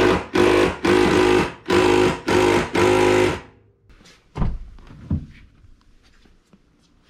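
Impact wrench hammering in about five short bursts, driving out a Torx seat-mounting bolt, then two knocks.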